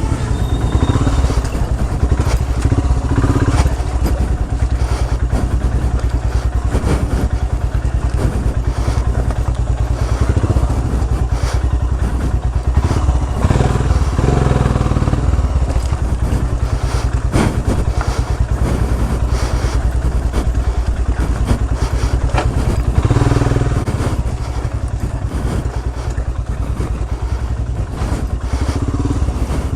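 Royal Enfield Himalayan's single-cylinder engine running as the motorcycle rides a rough off-road trail, with frequent knocks and rattles from the bumps.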